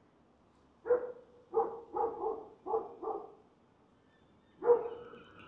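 A dog barking in short bursts: a run of about six barks from about one to three seconds in, then a pause and one more bark near the end.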